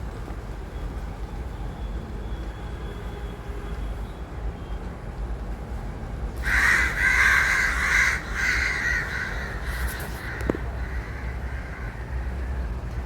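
Crows cawing: a run of loud, harsh caws about halfway through, over a steady low rumble.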